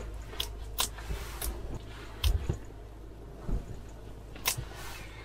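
Light clicks and rustling from handling an ice-fishing rod and spinning reel, with a few sharp ticks spread through and a louder click with a low thump a little over two seconds in.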